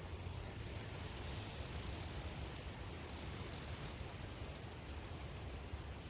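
Outdoor riverside ambience: a steady high hiss with fine, rapid crackling, louder from about a second in, over a low rumble.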